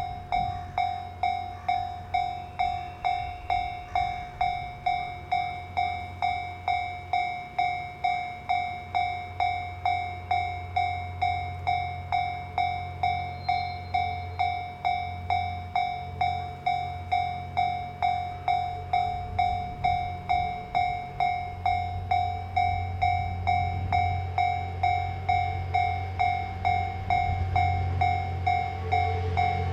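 Japanese level-crossing warning bell ringing its steady electronic 'kan-kan', about one and a half strikes a second. Under it a train's low rumble grows louder in the last several seconds.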